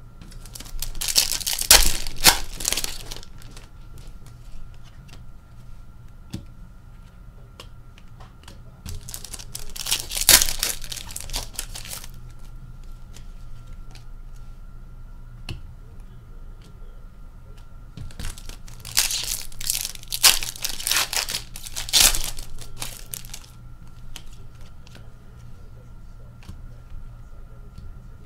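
Hockey card pack wrappers being torn open and crumpled by hand, in three bursts of crinkling and tearing roughly eight to nine seconds apart.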